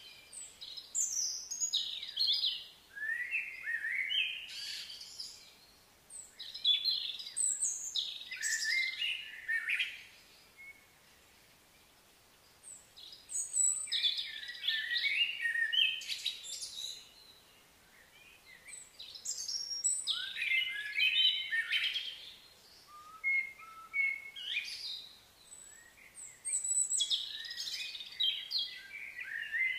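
Birds chirping and singing in high, warbling phrases a few seconds long, broken by short pauses.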